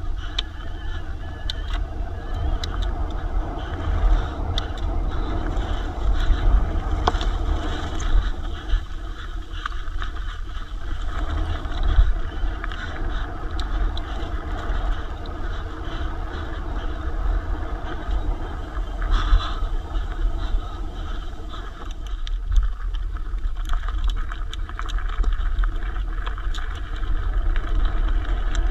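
Riding noise from an e-mountain bike on a trail descent: steady wind rumble on the microphone, with scattered clatter and knocks from the bike over rough ground.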